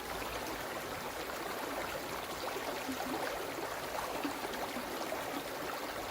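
Small woodland stream flowing over stones, a steady babbling and trickling.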